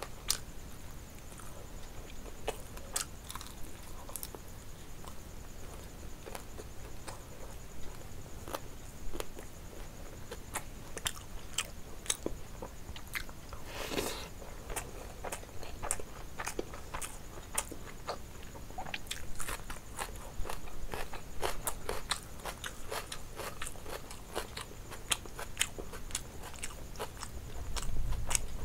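A person eating rice and curry by hand: chewing and mouth smacks, with short sharp clicks scattered throughout that come thicker in the second half.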